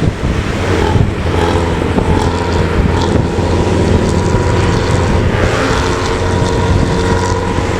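Intercity bus diesel engine running steadily under load, with a loud, low exhaust note from a 'knalpot ngorok' ('snoring' exhaust).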